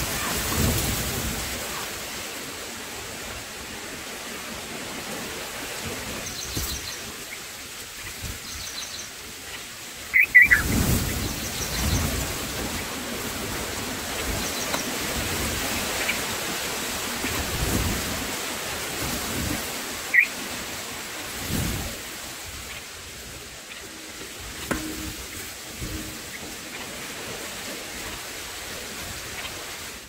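Steady outdoor hiss with low rumbling gusts, with a few short, high bird chirps: the loudest about a third of the way in, others around the middle and two-thirds in.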